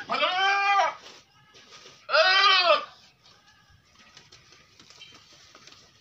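Goat bleating twice, two loud calls of under a second each, about two seconds apart, each rising then falling in pitch.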